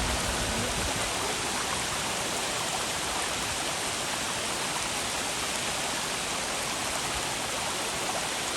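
Steady rushing water of a cascading stream: an even, unbroken hiss.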